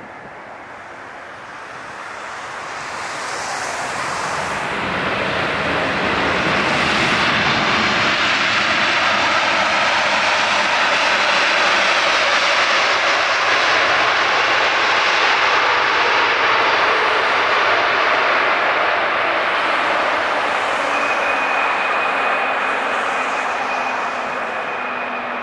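Boeing 787-9's twin GE GEnx-1B turbofans on the landing roll: a broad jet rush that swells over several seconds as the airliner passes, holds loud, then slowly eases off. A steady high fan whine comes in near the end.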